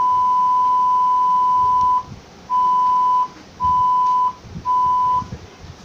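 Steady single-pitched test tone (about 1 kHz) from the TV, as broadcast on an otherwise empty satellite channel. It sounds unbroken for about two seconds, then cuts out and returns three times in shorter stretches of under a second as the receiver steps through channels.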